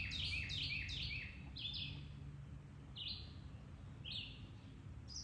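A small songbird chirping: a quick run of short, high, down-slurred chirps for about two seconds, then single chirps about once a second.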